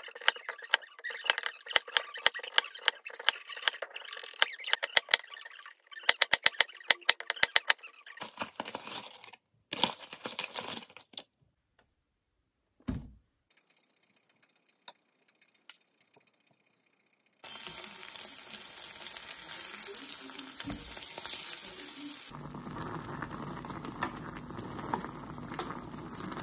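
Cooking zucchini pancakes: a run of quick, sharp knocks while the food is prepared, then, after a break, a steady sizzle of the pancakes frying in an oiled pan.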